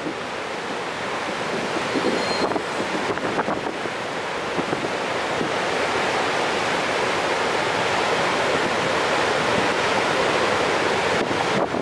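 Steady roar of the High Falls, a large waterfall on the Genesee River, a dense rushing of falling water that swells gradually over the first half.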